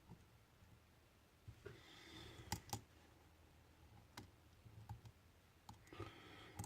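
Faint, scattered clicks of a lock pick and tension wrench working the pins of a Lockwood pin-tumbler challenge lock, about half a dozen spread over several seconds with two close together a little past two seconds in.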